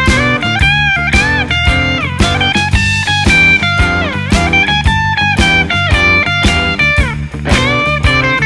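Electric guitar (a Bacchus T-style with DiMarzio Area T pickups) playing a crunchy, overdriven blues lead through an AmpliTube 5 amp simulation, with frequent string bends, over a blues backing of drums and bass.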